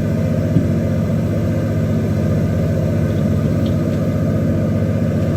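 Fishing boat's engine running steadily, a low even rumble.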